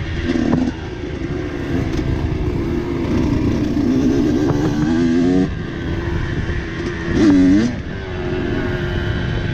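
Dirt bike engine working at low speed over rough ground, with short throttle blips. The revs climb a few seconds in, drop off suddenly at about five and a half seconds, and give a quick rev about seven seconds in.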